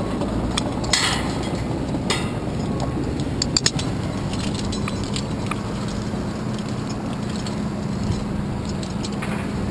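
Climbing gear (carabiners and lanyard hooks) clinking and knocking against a steel lattice tower a few times, loudest about three and a half seconds in, over a steady wind rush on the microphone. A low steady hum comes in about halfway.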